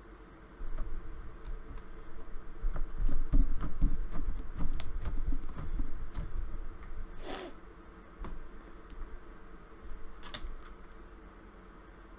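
Slime with dried clay bits in it being squeezed and worked by hand: a run of small sticky clicks and soft squishes, with a brief airy squelch about seven seconds in and another near ten seconds.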